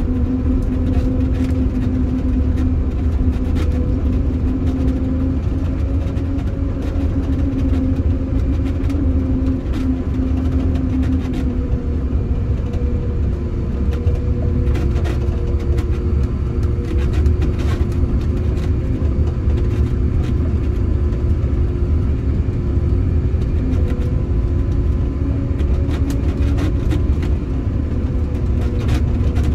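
Prinoth Bison snowcat's diesel engine running steadily under load, heard from inside the cab, with a deep rumble as the machine pushes snow with its front blade. The engine's drone shifts slightly in pitch about halfway through.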